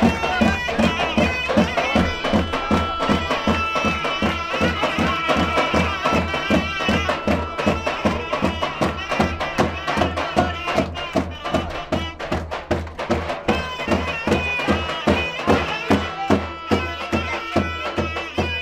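Traditional Turkish folk dance music: a wind instrument plays an ornamented melody over a steady, fast drum beat.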